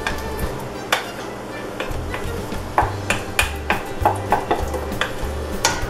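Wooden spoon scraping thick tomato paste out of a stainless steel bowl into a metal pot, with a string of light knocks of spoon against metal that come more often in the second half, over background music.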